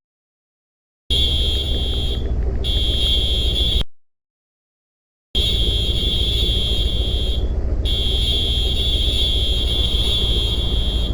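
A steady high-pitched electronic tone, like an alarm, over a heavy low rumble. The sound cuts out completely at the start and again about four seconds in, each time for a little over a second, and the tone drops out briefly a few times.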